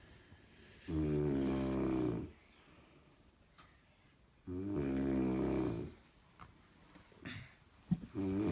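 A woman snoring loudly: two long, droning snores about three and a half seconds apart, with quiet gaps between them, and a third starting right at the end.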